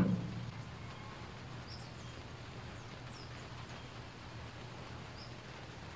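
A single knock right at the start as the metal reed valve block is handled, then a low steady background hum with a few faint, brief high chirps.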